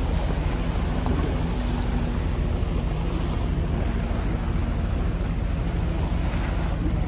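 Wind rumbling steadily on the phone's microphone, over small waves lapping on a sandy shore.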